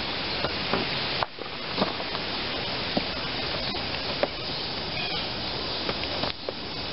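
Utility knife cutting seat foam: short scratchy clicks about once a second over a steady hiss. The hiss drops out briefly about a second in and again near the end.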